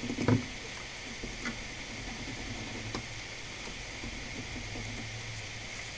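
Steady low hum with a faint hiss of workbench background.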